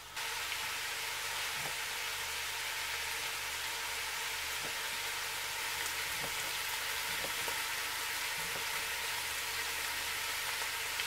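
Bacon frying in a pot, a steady sizzle. Faint knife taps on a plastic cutting board now and then as smoked sausage is diced.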